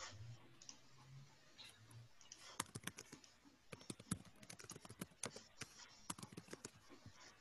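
Faint, irregular clicking of computer keys being typed, over near silence; the clicks start about two and a half seconds in.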